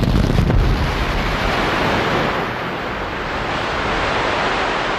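Explosion sound effect: a sudden loud blast that turns into a steady rush of rumbling noise lasting several seconds.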